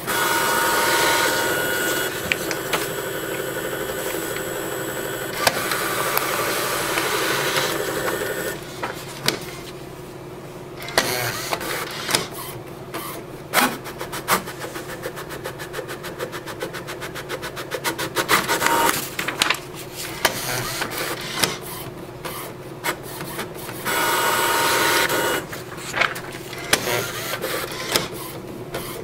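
Portable inkjet printer working through a print job: a motor whirs as the paper feeds for the first eight seconds or so, then a run of rapid, even clicking around the middle, and another short whir near the end. The job is not printing correctly.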